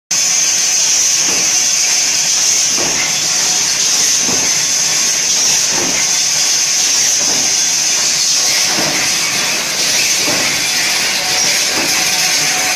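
Blister packing machine running: a steady high hiss, with a repeated stroke of its stations about every second and a half.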